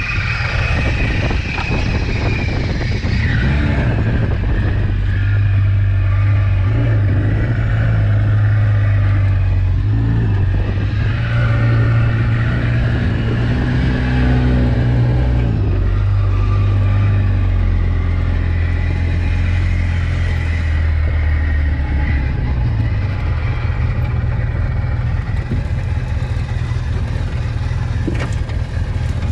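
Polaris RZR side-by-side's engine running on a rough dirt trail, its drone rising and falling with the throttle, heard from the driver's seat.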